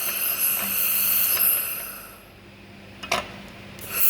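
Handheld fiber laser welding head test-firing onto metal, a high-pitched hissing buzz. It stops about two seconds in, a couple of clicks follow, and it starts again near the end as the head is moved to find the focus distance.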